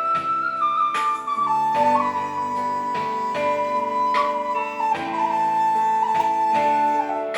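Instrumental Thai music: a khlui (Thai bamboo flute) playing a slow melody in long held notes that step between pitches, over sustained accompaniment chords and a soft regular beat.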